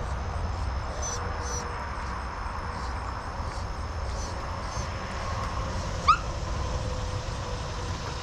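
A dog, held by the muzzle while being dosed with dewormer paste from an oral syringe, gives one short, sharp rising squeak about six seconds in. Under it runs a steady low rumble with faint high chirps.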